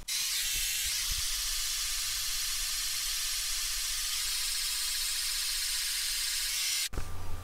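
Pink noise test signal playing through a car's left tweeter: a steady hiss with almost nothing below about 1 kHz. It cuts off suddenly near the end, as the moving-mic RTA measurement finishes averaging.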